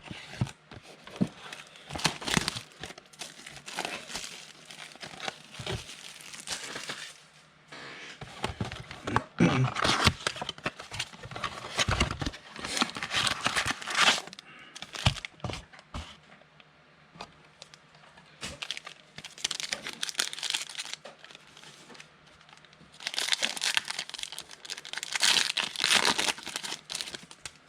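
Wrapper of a 2019 Donruss football card pack crinkling and tearing as it is opened by hand, in several bursts with quieter gaps between them.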